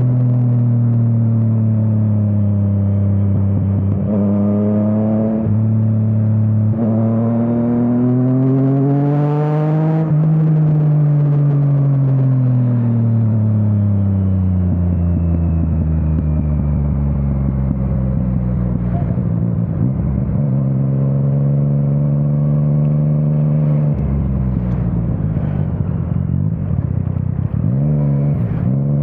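Yamaha MT-09's inline three-cylinder engine through an Akrapovič exhaust, ridden under load. The pitch climbs as it accelerates for the first ten seconds, falls off, holds steady, then changes quickly a few times near the end.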